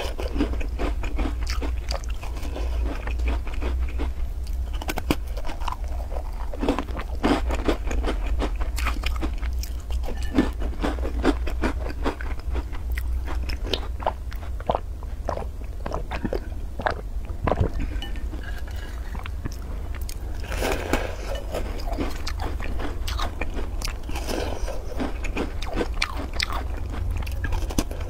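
Close-up biting and chewing of cookies dipped in milk, with irregular crunches and wet mouth sounds. A steady low hum runs underneath.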